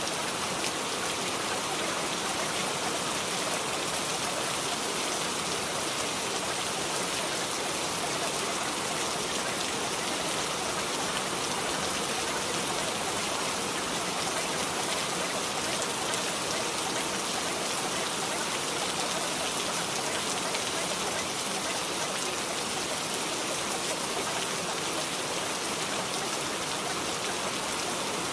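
Steady rain sound, an even unbroken hiss with no distinct drops or pauses, serving as the masking track of a subliminal recording.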